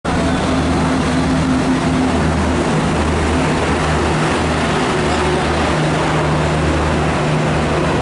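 WAP7 electric locomotive hauling ICF Rajdhani coaches slowly along a station loop line: a steady rumble of wheels on rails with a low, wavering hum from the locomotive.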